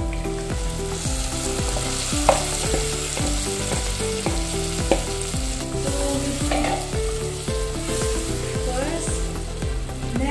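Blended fresh tomato poured into a pan of onions and garlic frying in butter and olive oil, the sizzle swelling about a second in, then stirred with a plastic spoon, with two sharp knocks of the spoon against the pot.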